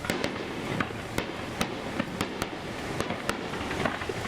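Fireworks display going off: an irregular run of sharp cracks and pops, several a second.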